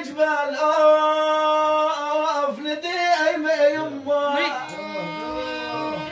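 Violin playing a slow, ornamented Arabic melodic phrase, with long held notes that bend and slide between pitches, and a quick upward slide near the end.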